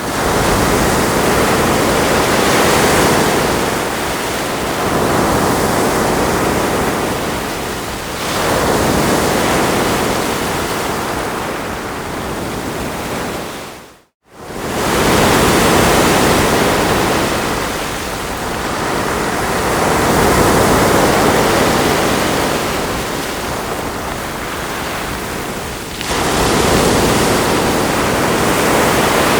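Ocean waves washing onto a shore: a steady rushing surf that swells and eases every few seconds. About halfway through, the sound cuts out for a split second and comes straight back.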